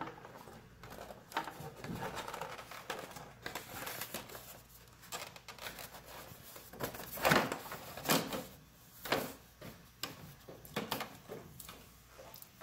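Plastic fairing parts of a BMW R1250RT, the knee cover and radiator discharge duct, being pushed and worked by hand: scattered plastic clicks and knocks with faint rubbing, as a hidden tab is pressed home into its slot. The sharpest knocks come about seven to nine seconds in.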